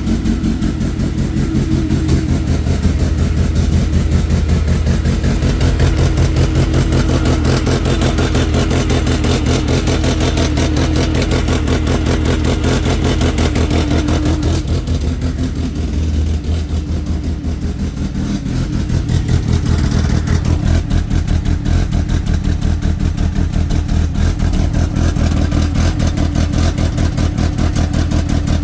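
Mercedes C230's supercharged four-cylinder engine idling rough, with a fast, uneven pulsing beat. About halfway through, the sound changes: the higher hiss drops away and the low note shifts.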